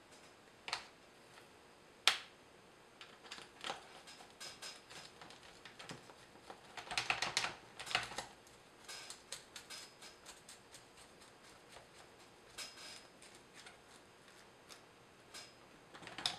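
Faint, scattered clicks and taps of small metal and plastic parts as a drive shaft and its set screw are fitted into a Traxxas Summit RC truck's front end with a hex driver. A busier run of clicks comes about seven seconds in.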